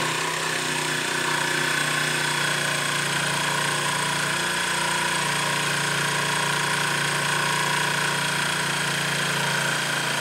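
Old blue Ryobi 18V cordless jigsaw running steadily, its blade sawing slowly through a wooden board in straight-cut mode with the orbital action off. It cuts very slowly on a small 1.5 Ah battery, which the cut drains flat.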